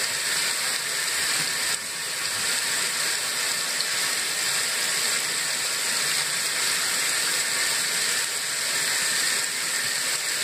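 A 1997 Kenmore top-load washer filling: water pours from the fill inlet into the tub with a steady rushing sound.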